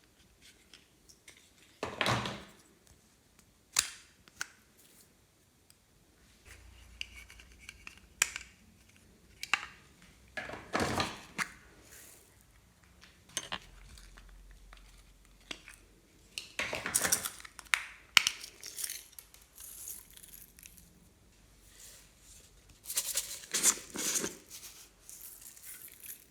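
Glossy slime being squished and stretched by hand: irregular sticky crackles, pops and small clicks coming in separate bursts, with the busiest ones about two seconds in, in the middle and near the end.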